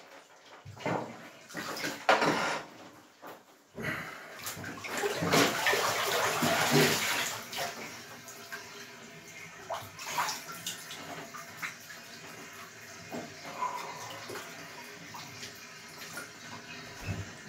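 Water in a bathtub ice bath sloshing and splashing as a person stands up in it, loudest for a few seconds in the middle, then settling to quieter small splashes.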